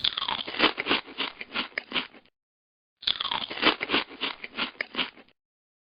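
Crunchy munching sound effect, a rapid run of bites about four to five a second, played twice with a silent gap of under a second between.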